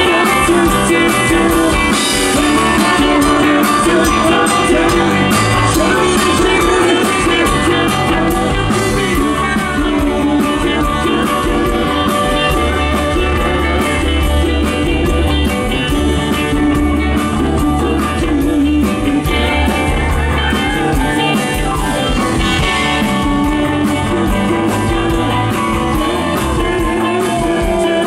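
Live rock band playing loud through the stage PA: electric guitar, bass and drums, with a woman singing.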